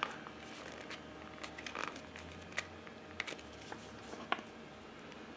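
Faint, scattered light clicks and soft rustling from small items being handled, over a low room hum.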